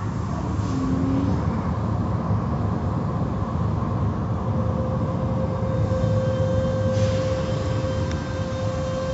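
Automatic car wash running: a steady low rumble of machinery and spraying water, with a constant motor whine held on one pitch.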